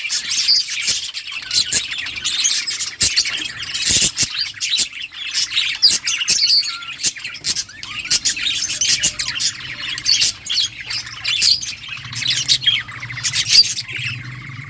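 A flock of budgerigars chirping and chattering, with many busy, overlapping calls. A low steady hum comes in about halfway and grows stronger toward the end.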